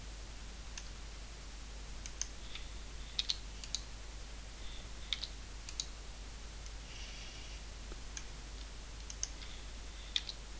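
Light, irregular clicks of a computer mouse and keyboard, often in quick pairs, including the Delete key pressed twice, over a faint steady hiss.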